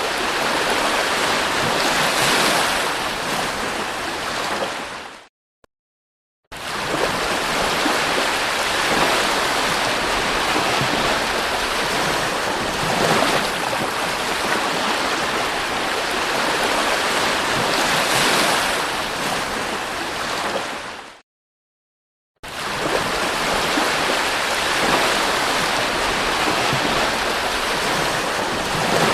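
Sea waves washing onto a beach, a steady rush of surf that swells and ebbs. It cuts out abruptly twice for about a second.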